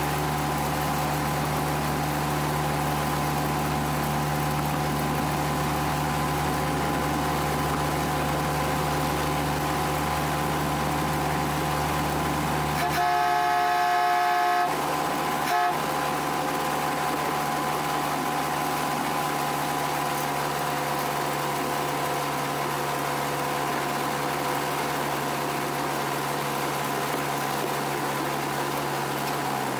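Miniature railway locomotive's engine running steadily, with one long horn blast about 13 seconds in, followed a second later by a short toot.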